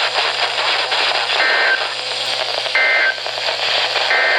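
NOAA Weather Radio SAME end-of-message data burst sent three times, each a short two-tone warbling chirp about a third of a second long, about 1.4 seconds apart, over a steady hiss of radio static. It signals the end of the severe thunderstorm warning that was just broadcast.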